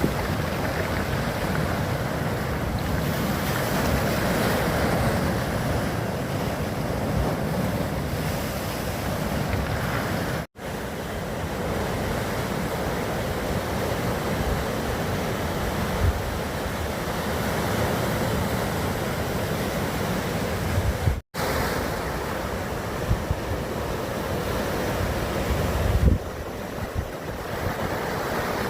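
Sea waves washing ashore, a steady rushing surf, with wind buffeting the microphone in low gusts. The sound cuts out for an instant twice, at edits.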